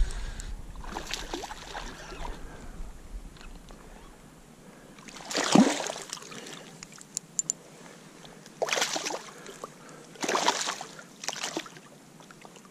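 A hooked smallmouth bass splashing and thrashing at the water's surface as it is played in close: a loud splash about halfway through, then two or three shorter ones near the end.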